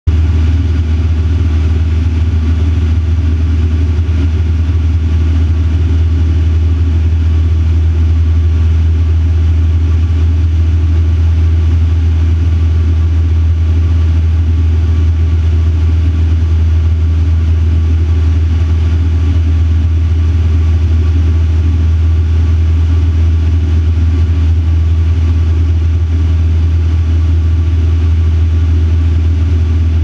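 Van's RV-4 light aircraft's piston engine and propeller running at steady cruise, heard from inside the cockpit as a loud, unchanging drone with a strong low hum and a hiss above it.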